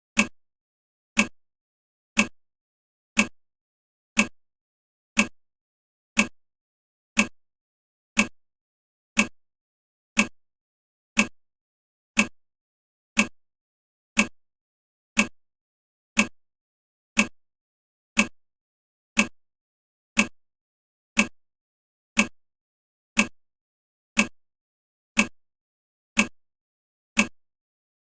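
Clock-tick sound effect of a countdown timer, one sharp tick every second, each dying away quickly, marking the seconds as the timer counts down.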